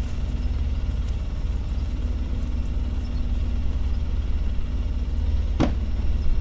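Classic car's engine idling with a steady, even low rumble. A brief sharp sound comes about five and a half seconds in.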